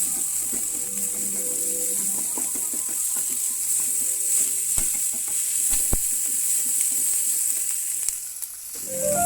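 Food sizzling as it fries in a pan, a steady hiss, with a couple of light knocks midway.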